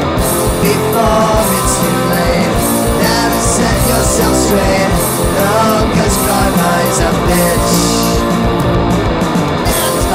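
Loud punk rock song with a band playing and a sung vocal at times.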